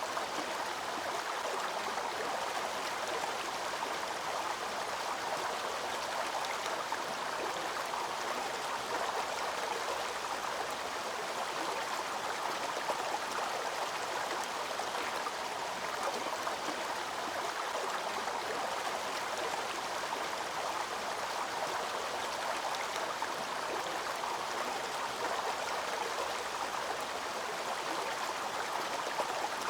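Waterfall water rushing and splashing in a steady, even rush with no breaks or changes.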